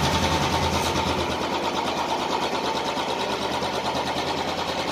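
Royal Enfield Standard 350 BS6 single-cylinder engine idling just after catching on a kick start, with a steady, even beat.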